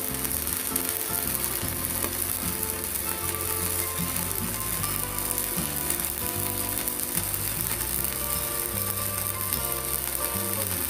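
Stick (MMA) welding arc from a mini IGBT inverter welder burning a 4.0 mm electrode: a steady, even hiss, with music underneath.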